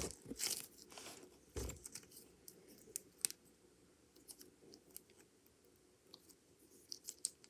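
Soft putty being squeezed and worked by hand, giving irregular sticky pops and crackles, busiest in the first two seconds and again near the end.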